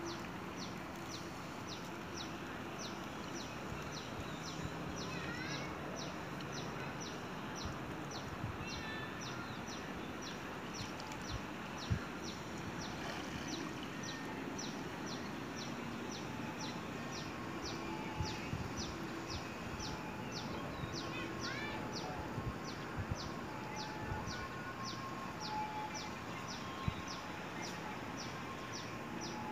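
Outdoor ambience: a high, short chirp repeats evenly about twice a second over a steady background hiss, with a few scattered higher bird-like chirps and calls. Occasional faint knocks stand out, the clearest about 12 seconds in.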